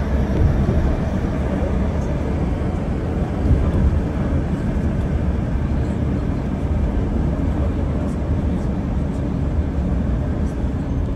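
Steady low rumble of a moving bus heard from inside the cabin: engine and road noise at cruising speed.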